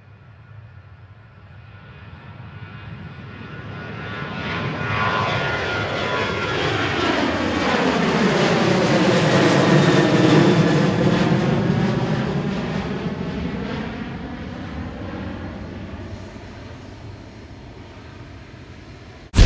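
An airplane passing by with its engines running. The sound swells to its loudest about halfway through, then fades, and its pitch sweeps as it goes past.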